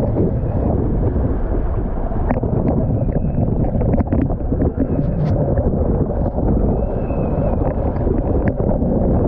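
Strong wind buffeting the microphone: a loud, steady rumble, with scattered sharp clicks and a faint wavering high whistle twice.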